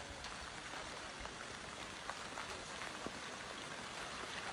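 Faint crackling of an advancing lava flow front on Mount Etna, small irregular ticks over a steady hiss as cooling lava blocks break and tumble.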